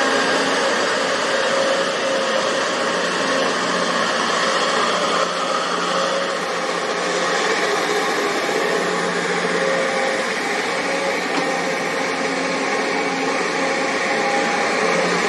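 Excavator engine running steadily, a constant mechanical drone with a steady hum.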